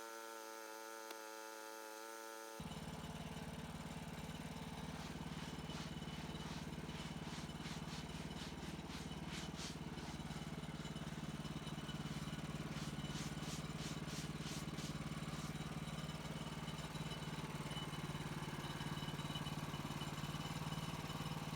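A sawmill's engine settled at idle after a cut, running steadily; about two and a half seconds in the sound changes abruptly to a louder, deeper engine idling, with a stretch of light clattering in the middle.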